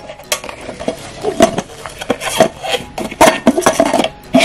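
Thin stainless-steel inner pot of a wax warmer clinking and knocking as it is handled and fitted into the heater base: a quick series of light metallic knocks, each with a short ring.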